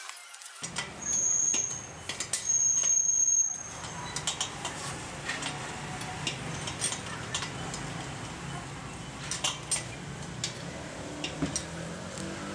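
Spanner clinking against a nut and washer as a rubber foot is bolted to the steel bracket of an air compressor tank, many short metallic clicks over a steady low rumble. Two short high-pitched squeaks come about a second in and again at about two and a half seconds.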